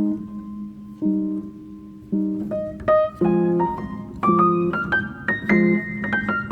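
Background music: piano or electric piano playing chords and a melody that climbs higher and gets busier in the second half.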